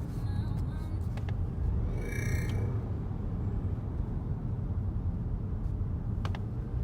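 Inside a 2019 Volvo XC60 T8 hybrid with its petrol engine running: a steady low engine-and-road rumble, and about two seconds in a short, high warbling chirp lasting under a second. This chirp is the intermittent noise the owner hears only when the gas engine is on, rising in intensity with engine revs, which he thinks may come through the car's speakers.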